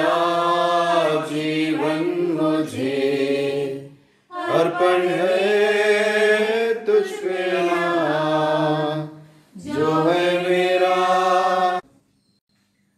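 A church hymn sung by a group of voices in long, slow, held phrases, with two short breaths between them. It stops about a second before the end.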